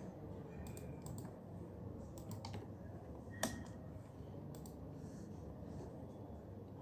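Typing on a computer keyboard: keys clicking in scattered short runs, with one sharper, louder keystroke about three and a half seconds in.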